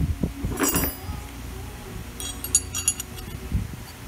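Metal clinks from a steel stud bolt and hand tools being handled: one ringing clink about half a second in, then a quick run of small metallic clicks around two to three seconds in, over dull handling knocks.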